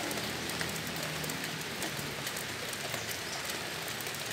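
Steady rain falling, with many small ticks of single drops hitting close by.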